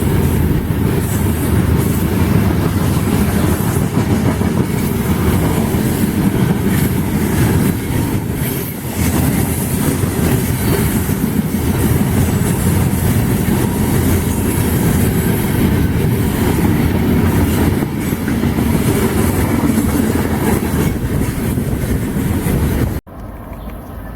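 Freight train cars rolling past close by, a dense rumble with the clickety-clack of wheels over the rail joints and a touch of wheel squeal. It cuts off abruptly about a second before the end, leaving a much quieter rumble.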